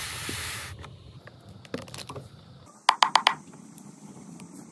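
Hands handling a cardboard gift box and its card insert: a short rustling hiss at the start, a few light taps, then four quick sharp clicks about three seconds in.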